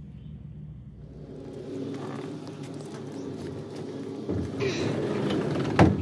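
A steady low rumble, then a sheet-metal barn door being pushed by hand, ending in one loud bang just before the end.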